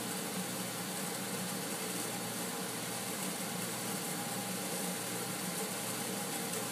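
Geothermal heat pump running: a steady hiss over a low hum, with a thin steady tone above it.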